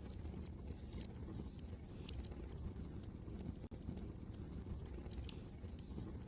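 Wood fire crackling, with irregular sharp pops and snaps, over a steady low wind rumble. The sound drops out for a split second about halfway through.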